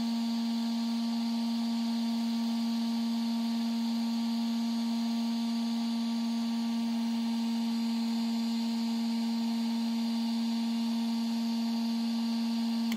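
Parkside PHLGA 20 Li-A1 cordless heat gun running at its maximum 550 °C setting: a steady hum from its fan motor over a rushing hiss of air. It cuts off suddenly at the very end.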